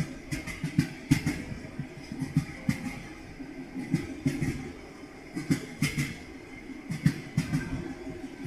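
Train wheels clattering over rail joints: clusters of sharp knocks every second or so over a low running rumble.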